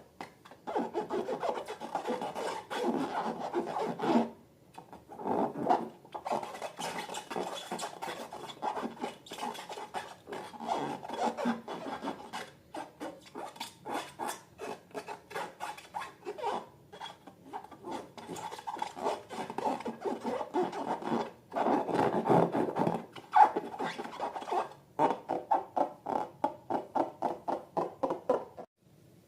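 Slime being worked: a quick run of short, sticky rubbing and scraping strokes, with a brief pause about four seconds in, stopping just before the end.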